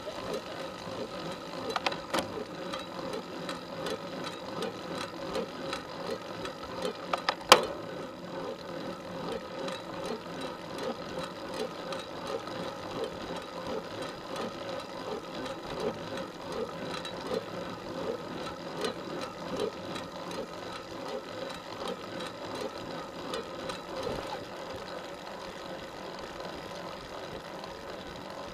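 Road bicycle being ridden uphill, heard through its bike-mounted camera: a steady rhythmic rattle of a bit under two beats a second, with a sharp click about 2 seconds in and a louder one about 7 seconds in.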